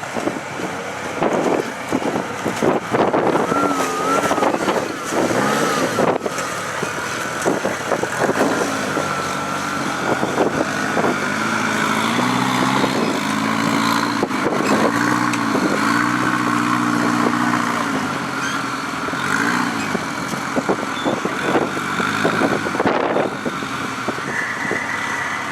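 Rock-crawler buggy's engine revving in repeated rising and falling bursts as it climbs over rocks, with scattered knocks.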